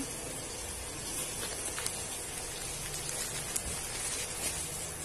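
Plastic packaging and a cloth curtain being handled: a soft rustle with a few small crackles over a steady hiss.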